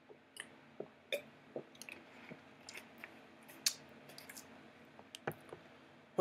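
A person drinking water: faint swallowing and mouth sounds with scattered small clicks and knocks as the cup is handled, the loudest about a second in and near the middle.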